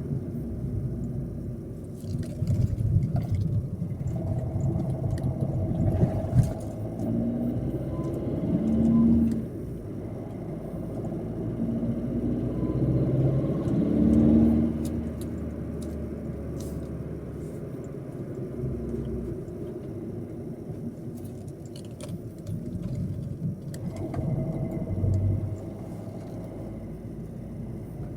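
Opel Corsa D turbo petrol engine running and revving up twice, rising in pitch and loudness before dropping back to lower revs. The car has a turbo failure and is not making boost.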